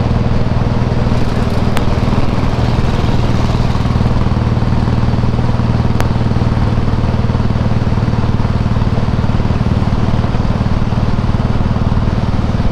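Harley-Davidson Softail Heritage's Twin Cam 96 V-twin with Screamin' Eagle exhausts running at a steady speed while riding. The engine note holds even throughout, with no rise or fall in revs.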